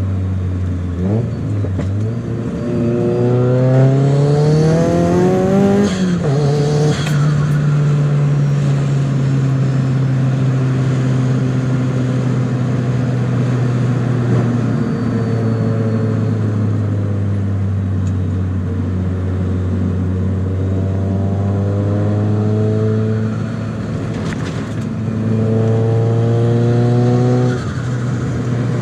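Nissan SR20DET turbocharged four-cylinder engine accelerating hard with rising revs twice, each time dropping suddenly as the throttle closes, with a short chattering turbo flutter. In between it runs steadily under light throttle.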